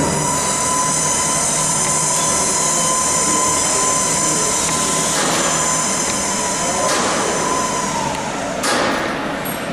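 Pedestrian-operated electric tug running under load, with a steady whine over a rolling rumble and rattle of wheels. The whine stops about eight seconds in, and there is a single clunk shortly after.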